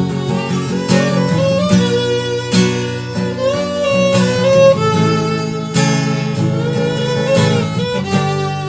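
Instrumental music, the intro of a pop song: a held melody line with vibrato over regularly plucked chords.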